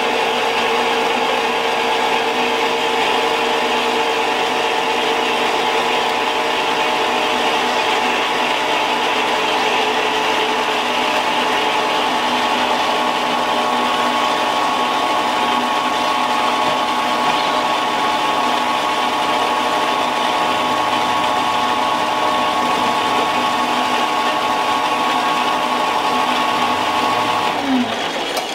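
Horizontal metal-cutting band saw running steadily, its blade cutting through a steel tube. Near the end the motor winds down with a falling pitch and stops.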